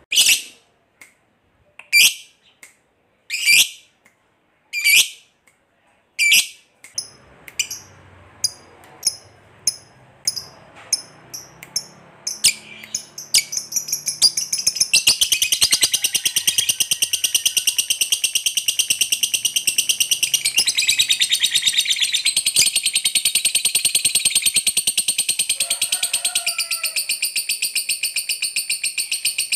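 Lovebird calling: sharp single shrieks about every second and a half, then shorter, quicker chirps, and from about halfway through a long unbroken rapid chatter, the long 'ngekek' that lovebird keepers prize.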